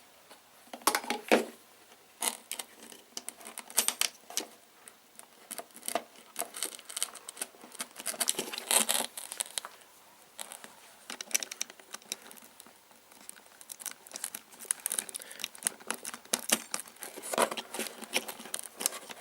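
Hands working small electrical wiring: irregular clicks, scrapes and crinkling as spade connectors are handled and pushed onto the terminals of a plastic fuse box.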